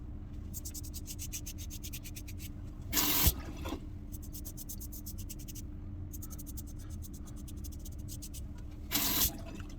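Aluminium safety razor with a sharp double-edge blade cutting lathered stubble on a second pass: runs of fast crackling scrapes as the blade shears the hairs. Two brief, louder bursts of noise break in, about three seconds in and near the end.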